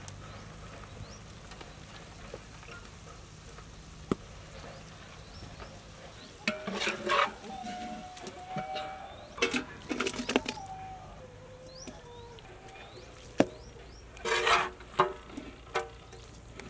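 Metal spatula stirring and scraping goat-intestine curry around a large metal cooking pot, in three scraping bursts with a few sharp metal clicks between them. Faint bird chirps run underneath.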